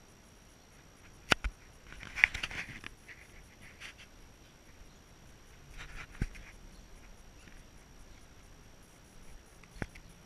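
A few sharp knocks and short bursts of rustling clatter, the handling noise of a camera carried while walking, over a quiet background with a faint steady high whine.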